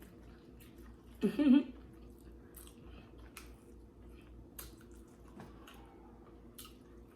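A person chewing food close to the microphone: faint wet mouth sounds with scattered short clicks.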